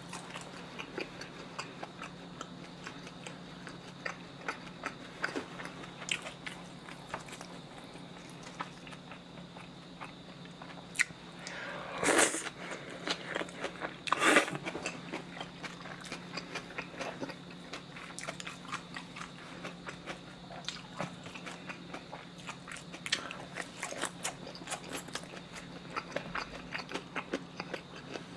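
Close-miked chewing of spicy cold noodles and pig's trotter meat: a steady run of small wet mouth clicks, with two loud slurps of noodles about halfway through.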